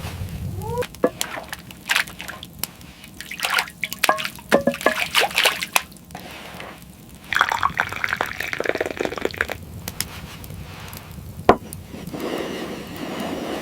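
Water dripping and sloshing, with many short drips and splashes, then a longer splash of noise at about seven seconds and one sharp knock near the end.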